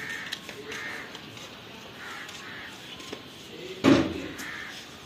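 Crows cawing several times, with one much louder, closer caw about four seconds in.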